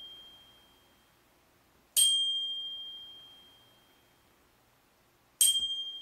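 Cheap no-name dual bicycle bell rung twice, about three and a half seconds apart. Each strike leaves a single clear high ringing tone, a G, that fades away over a couple of seconds. The tail of an earlier ring is dying away at the start.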